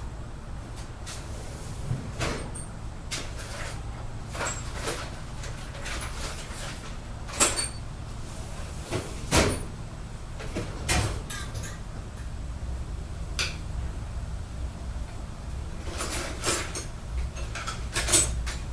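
Metal hand tools clinking and clattering: sockets and tools picked up, tried and set down in a tool kit, as irregular sharp knocks, a few with a short metallic ring, over a low steady hum.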